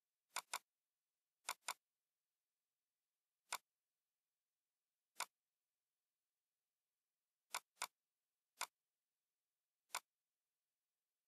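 Computer mouse button clicks, about ten of them at irregular intervals, some in quick pairs, over near silence.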